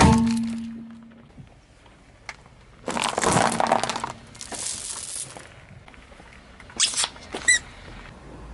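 Small plastic objects cracking and crunching under a car tyre on asphalt: a loud crack right at the start that rings briefly, a longer crunching about three seconds in, then a short crack and a brief high squeak near seven seconds.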